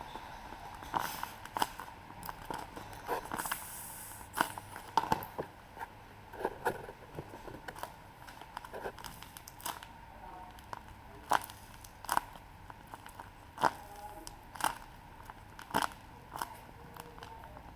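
Paper packaging being handled close up: irregular crinkles, rustles and sharp crackles and taps, a second or so apart.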